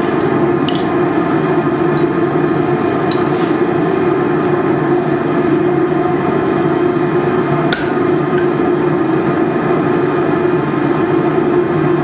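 Gas forge burner running with a steady rushing noise, broken by a few sharp metallic clinks, the loudest about a second in and about two-thirds of the way through.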